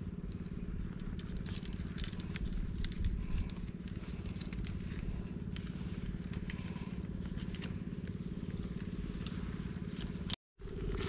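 A small engine running steadily at an even pitch, with scattered crackles and clicks over it. The sound drops out for a moment near the end.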